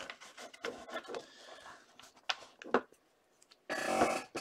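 A stack of hockey trading cards being handled by hand: cards sliding and rustling against each other with light clicks and taps as the stack is squared and moved. A louder rustle comes near the end.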